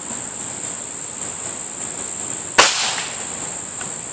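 A single shot from a Beeman RS2 .22 break-barrel spring-piston air rifle: one sharp crack about two and a half seconds in, with a short ring after it. Insects buzz steadily at a high pitch throughout.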